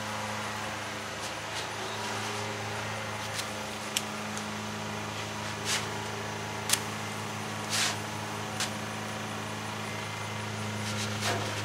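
Spatula tapping and scraping on a steel flat-top griddle as pancakes are flipped: about half a dozen short, sharp clicks spread out, over a steady low hum.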